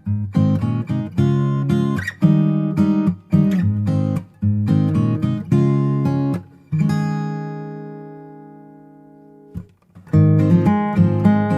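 Background music: acoustic guitar strumming chords, with one chord left to ring out and fade for a few seconds past the middle before the strumming starts again.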